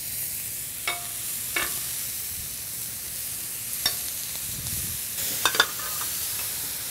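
Sous-vide-cooked octopus tentacles sizzling steadily on a hot ridged grill plate as they are seared for char, with a few sharp clicks of metal tongs against the grill.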